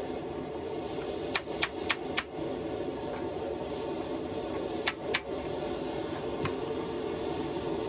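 Hand hammer striking a hot chisel to split the red-hot wrapped axe body held in a vise: four quick ringing metal-on-metal blows about a second in, two more near the middle and one lighter one later, over a steady low hum.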